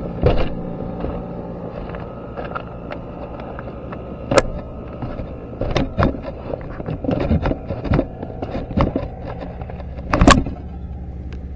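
Vintage Kyosho Blizzard radio-controlled snowcat's electric motor running with a steady hum, with scattered sharp clicks and knocks from the toy, the loudest about four seconds in and near the end.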